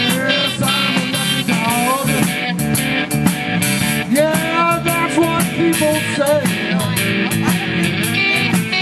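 Live blues band playing an instrumental passage: an electric guitar plays a lead with bent notes over drums and cymbals.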